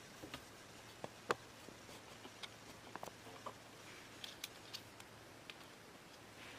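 Scattered light clicks and taps of a baitcasting reel's small metal washers and drag parts being handled on a metal tray, the sharpest click a little over a second in.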